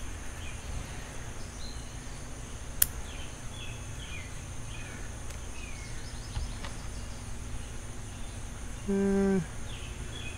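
Bonsai shears snipping a twig once, a sharp click about three seconds in, over outdoor background with small birds chirping. Near the end a brief low steady tone sounds for about half a second.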